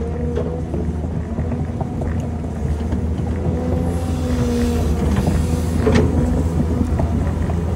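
Tracked excavator's diesel engine running steadily under load while it digs soil, with a brief swell of hiss about four seconds in and a sharp knock about six seconds in.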